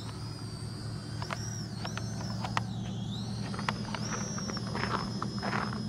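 Small quadcopter drone's propellers whining in flight, the pitch dipping and rising several times as it is throttled and turned. A few short clicks sound over the whine.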